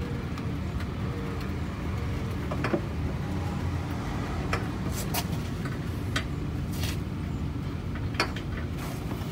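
Scattered sharp metallic clicks and taps from tools and bolts being fitted at a car's transmission bellhousing, over a steady low rumble.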